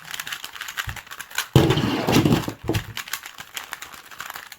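Rapid, irregular clicking and clattering of plastic 3x3 puzzle cubes being handled, louder for about a second around a second and a half in.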